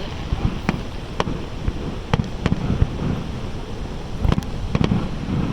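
Fireworks show: a string of sharp firework bangs at irregular spacing, some in quick pairs, over a steady low rumble.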